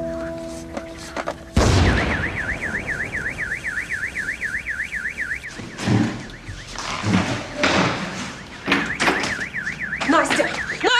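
A small explosive hidden in a gift box goes off with one sudden loud blast about one and a half seconds in. A high electronic alarm follows, warbling rapidly at about four or five wavers a second; it stops for a few seconds and starts again near the end, with several thuds and bangs in between.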